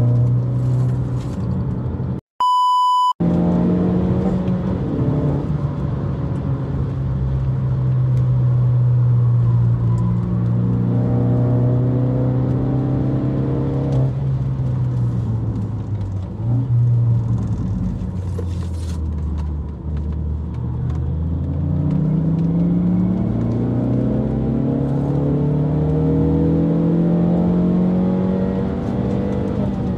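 Ford Focus ST engine heard from inside the cabin on a track lap, its note rising and falling with acceleration and braking and climbing steadily near the end. About two seconds in, the car sound cuts out for a short steady electronic beep.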